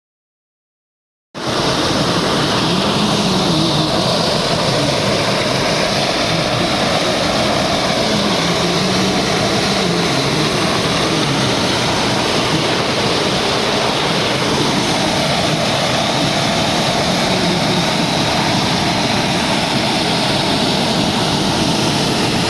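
Waterfall, a loud steady rush of falling water, cutting in suddenly about a second in.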